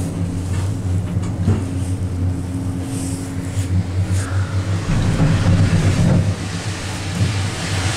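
Ride inside a 2005 Doppelmayr eight-seat gondola cabin climbing on its haul rope: a steady low hum with a louder swell of rumbling about five seconds in and a few faint knocks.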